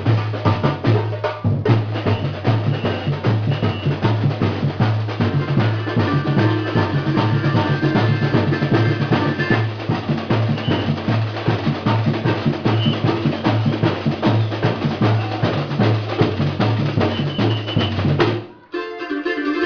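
Batucada percussion ensemble drumming a fast, driving rhythm, deep bass drums pulsing under rapid snare and other hand percussion. The drumming stops abruptly a second before the end.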